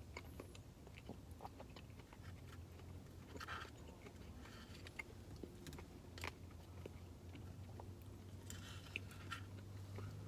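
Faint chewing and mouth sounds of a person eating a spoonful of ice cream with cookie dough pieces, with scattered soft clicks and a few brief rustles.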